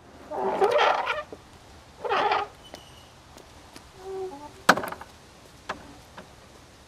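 Farmyard poultry calling: two loud calls in the first two and a half seconds, then a softer one. A single sharp knock comes about halfway through.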